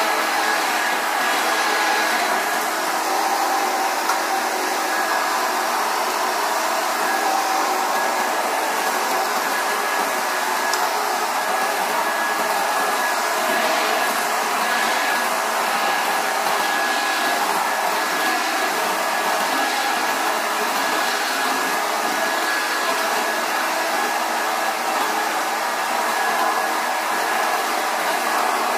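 Bagless upright vacuum cleaner running steadily as it is pushed over a tiled floor: an even rushing of air under a steady high motor whine.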